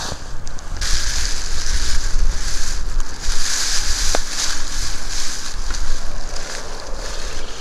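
Wind rushing over the microphone: a steady low rumble, with a hiss that comes in about a second in.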